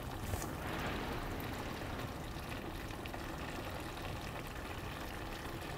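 Pot of chicken-broth roux with potatoes simmering on the stove: a faint, steady bubbling hiss.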